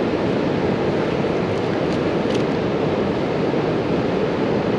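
Steady, even rushing of river water pouring over a weir, with a couple of faint ticks about two seconds in.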